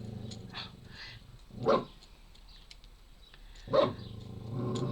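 A pet animal calling twice, two short loud calls about two seconds apart, as it reacts to a bird outside the window.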